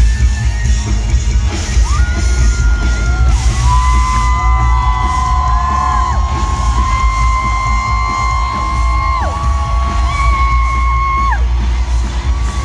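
Live rock band playing loudly, heard from within the crowd: heavy bass and drums under an electric guitar lead of long held notes that bend and slide in pitch. Fans whoop now and then.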